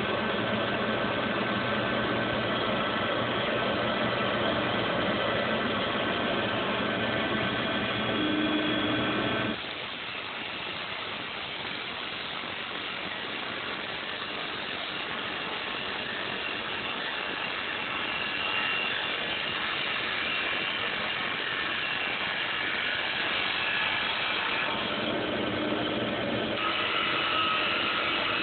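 Small CNC lathe running while turning a duck call barrel, a steady machine hum with high whining tones. About ten seconds in the sound drops abruptly and the whine stops, then the whining tones return near the end.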